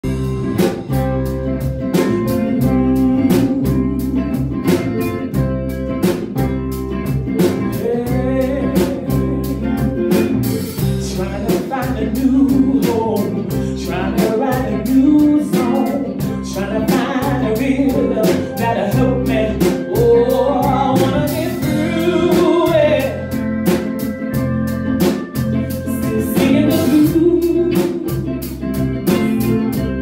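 Live blues band playing: a drum kit keeps a steady beat over bass and guitar, with a bending melody line over the top from about eight seconds in.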